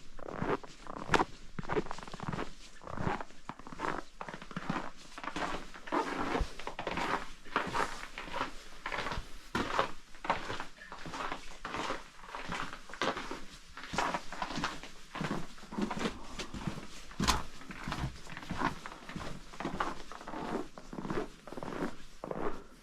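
Footsteps at a steady walking pace, about two steps a second, each step a short crunchy scuff.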